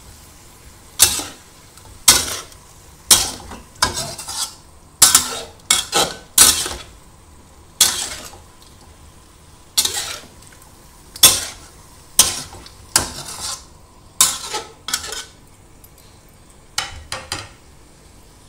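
Spatula stirring and tossing chicken and vegetables in a wok: irregular scraping clanks against the pan, one or two a second, over a faint sizzle of frying. The strokes stop shortly before the end.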